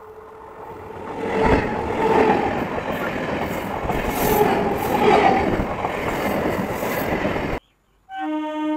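Electric passenger train approaching and then passing close at speed: a swelling, then steady rush and rumble of wheels on rail with some squeal. It cuts off abruptly near the end and is followed by a short steady horn blast.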